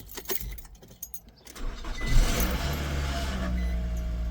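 Keys clicking in the ignition, then the 2011 Nissan Rogue's 2.5-litre four-cylinder engine cranks briefly and starts about two seconds in, revving up and settling into a steady idle. The starter motor, now bolted down solidly, engages and turns the engine over.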